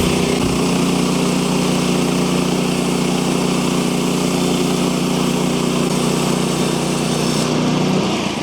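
Sawmill engine running steadily at speed, then dying away near the end.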